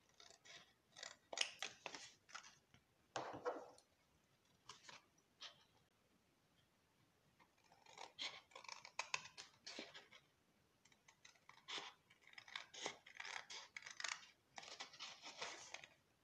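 Small scissors snipping through cardstock in quick runs of short cuts, pausing for a couple of seconds midway.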